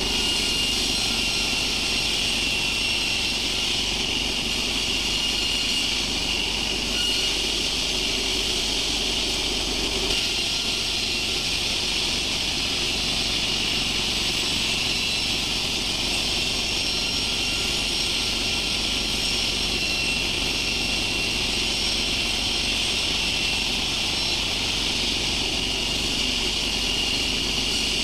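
Sawmill machinery running steadily, a constant high whine over an even mechanical noise.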